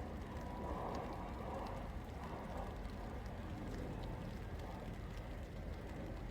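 Steady rain falling, with scattered drips ticking over a low, constant rumble.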